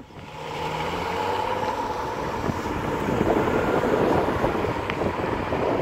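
A car driving along the road: engine running steadily under a rush of wind over the microphone, building up in the first second and then holding level.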